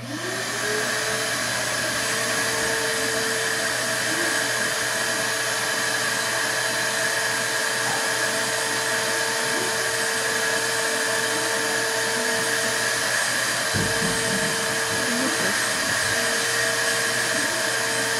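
A small electric motor switches on, its whine rising quickly and then holding steady, and runs continuously with a low hum beneath.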